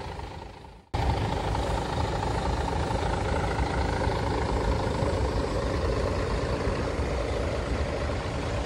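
After a brief drop-out, a heavy diesel engine starts to be heard about a second in and runs steadily close by, with a deep rumble under it.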